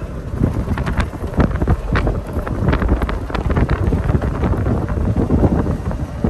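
Wind buffeting the phone's microphone in a loud, gusty rumble.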